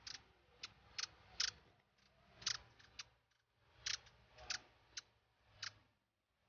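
Hummingbird giving about a dozen short, sharp chip notes at uneven intervals while it feeds at flowers.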